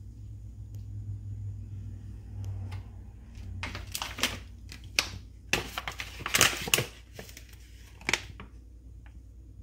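Plastic food pouch being picked up and handled, crinkling in a series of sharp crackles from a few seconds in until near the end, the loudest in the middle.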